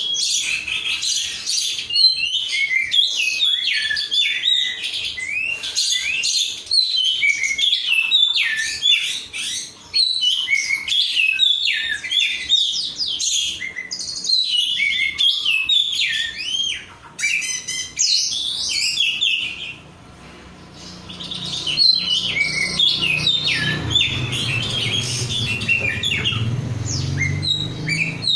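Oriental magpie-robin (kacer) in full song: a long, varied stream of loud whistles, chirps and rapid trills, showing the bird is fired up. It breaks off briefly about two-thirds of the way through, then resumes, with a low hum coming in during the last few seconds.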